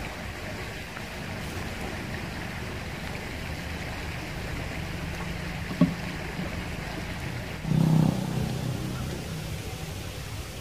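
Steady rush of flowing river water, with one sharp knock about six seconds in and a brief, louder low rumble around eight seconds in.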